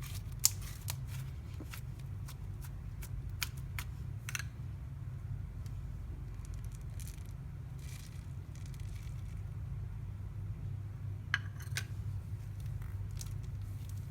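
Slime being squished and stretched by hand, giving irregular small clicks and pops, with a sharper one about half a second in and another near the end, over a steady low hum.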